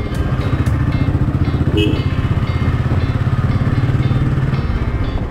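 Royal Enfield Thunderbird 350's single-cylinder engine running at low speed while riding, a steady rapid pulsing that eases off slightly before the end.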